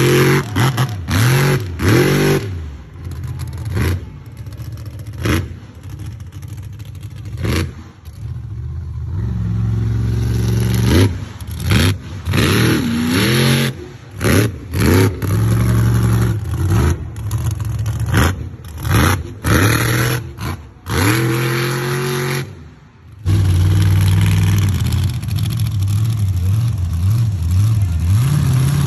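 Mega truck's big engine revving hard in repeated throttle bursts, the pitch climbing with each stab of the gas; in the last few seconds it holds a steady high-rev run.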